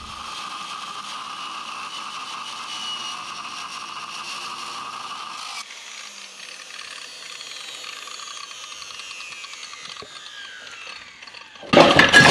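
Angle grinder with a large cutting disc cutting through a thick, rusty steel beam, a steady high whine under load. About five and a half seconds in, the load comes off and the disc's whine falls away as it spins down. A sudden louder clatter starts just before the end.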